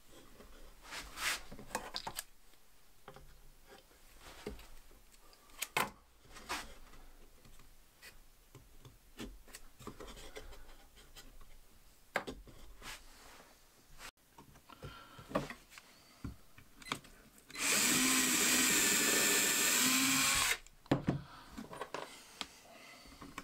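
Cordless drill running in one steady burst of about three seconds, near the end, after a series of light knocks and scrapes from wooden boards being handled and fitted.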